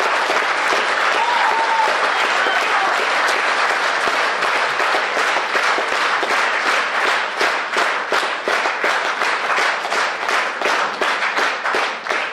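Audience applauding, the clapping falling into a steady unison rhythm of about three claps a second from about halfway through.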